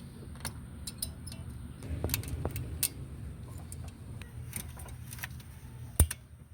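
Light metallic clicks and clinks of small brake pad hardware clips being handled and fitted into place on a caliper bracket, with one sharp knock near the end, over a steady low hum.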